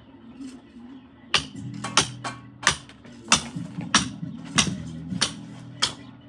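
A metal hand tool striking brick, a sharp clink repeated about every half second to second, as in bricklaying work. Music with a steady low tone plays underneath.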